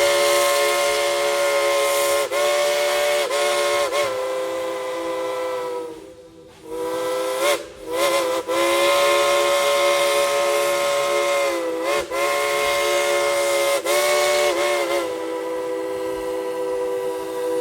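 Steam locomotive's chime whistle blown long and loud: a chord of several notes held in long blasts, broken by short gaps, with steam hiss under it. The pitch sags briefly as each blast opens. Near the middle it falls away for about a second, gives a short toot, and comes back on.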